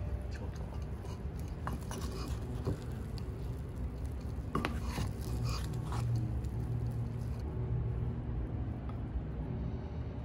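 Wooden rice paddle stirring and scooping freshly cooked rice in a clay donabe pot: soft scrapes and a few light knocks against the pot, over a steady low hum.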